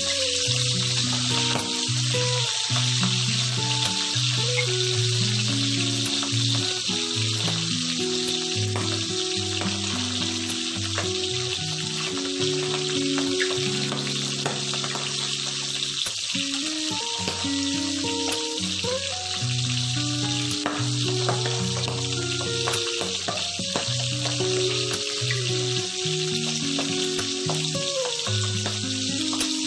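Milkfish steaks sizzling steadily in hot oil in a frying pan, a constant crackling hiss of shallow-frying, with held low notes of background music underneath.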